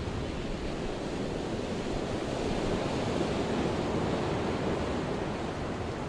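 Ocean surf washing in a steady rush of waves, swelling a little midway and easing off near the end.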